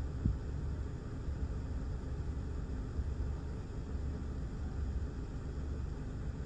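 Gusty thunderstorm outflow wind buffeting a car, heard from inside the cabin as a steady low rumble, with one brief thump just after the start.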